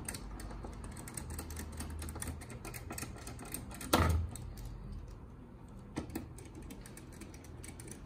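Small screwdriver turning screws into the sheet-metal chassis of an Asus G20AJ desktop: light, rapid clicking and ticking, with one louder knock about four seconds in and a smaller one near six seconds.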